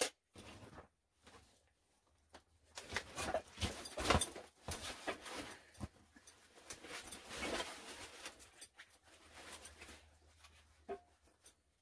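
Gear being handled while packing up: a sharp knock at the start, then irregular rustling and clattering of bags and equipment, with the loudest clatters about four seconds in.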